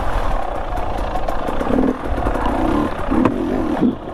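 Dirt bike engine running as the bike is ridden along a trail, with a steady rush of noise and rattling; a sharp knock about three seconds in.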